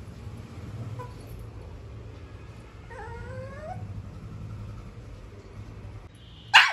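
Shih Tzu puppy whining as it strains for a toy out of reach: a faint short whimper about a second in, a longer rising whine around the middle, then one sharp, loud yip just before the end.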